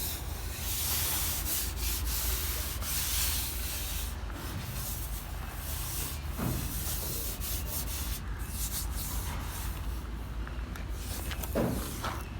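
Sanding on a car body panel during dent repair: a rasping rub in irregular strokes, over a steady low hum.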